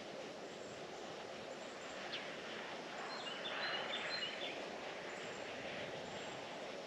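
Outdoor ambience: a steady background hiss, with a few short, high bird chirps about halfway through.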